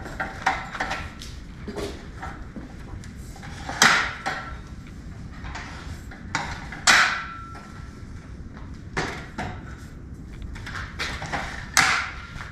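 A metal folding miter saw stand being taken down and unfolded, making a string of clanks and clicks as its legs and tubes knock together and lock into place. The louder knocks come about four seconds in, about seven seconds in with a brief metallic ring, and near the end.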